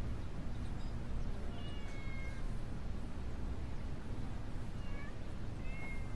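A cat meowing faintly, twice, over a steady low background hum.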